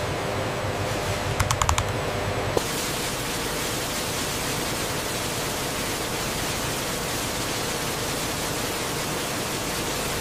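Steady factory hum with a short run of keyboard clicks about a second and a half in. About two and a half seconds in it gives way to a steady, even rushing hiss of industrial ambience that holds to the end.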